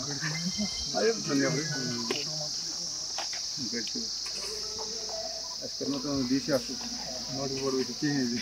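Men's voices talking for the first two seconds or so and again near the end, over a steady high-pitched chorus of insects that runs throughout.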